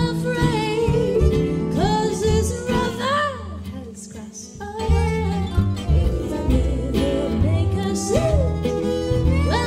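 Gypsy swing played live on fiddle, acoustic guitar and harp, the fiddle leading with sliding phrases. The low accompaniment drops away for about a second and a half near the middle, then comes back in.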